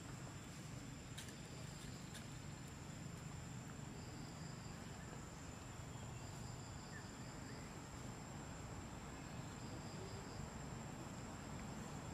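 Insects calling steadily outdoors: a constant high whine with a second, lower buzz that comes and goes every couple of seconds, over a low background rumble. There are a couple of faint clicks about one and two seconds in.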